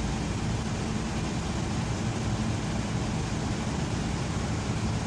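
An engine running steadily, a constant low rumble with no change in speed.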